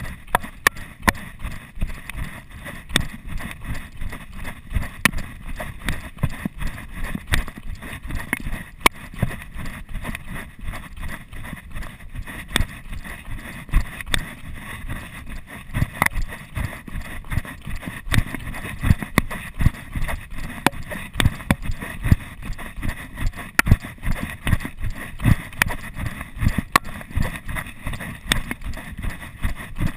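Running footsteps on a dirt and gravel trail: quick, regular footfalls, each a thud with a crunch of grit, picked up by a chest-mounted camera that bounces with every stride.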